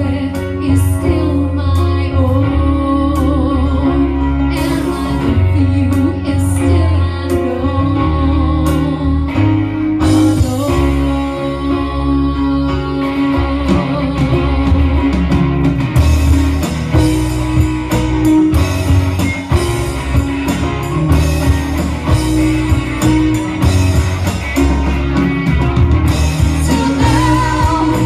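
A band playing rock music with singing, guitar and drums, with a steady beat.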